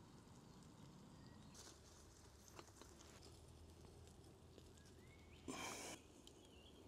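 Near silence: faint outdoor background with a few quiet chirps, broken by one short burst of hiss about five and a half seconds in.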